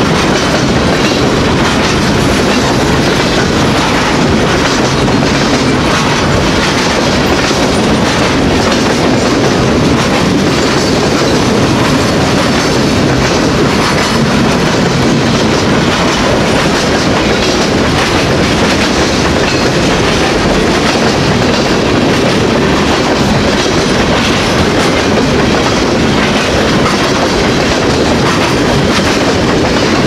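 Freight train's boxcars rolling past close by: a loud, steady rumble and clatter of steel wheels on the rails.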